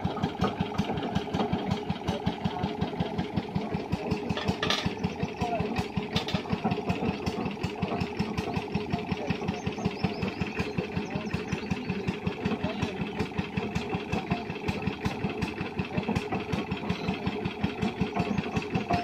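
Stationary engine with a large flywheel running steadily, its exhaust beating evenly at about four beats a second.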